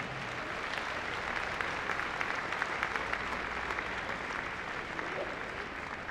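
Audience applauding, the clapping dying away toward the end.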